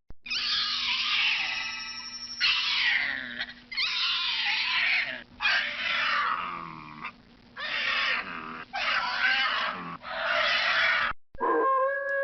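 Horror sound effect of a creature roaring in about seven harsh bursts, each sliding down in pitch, which stop abruptly about a second before the end.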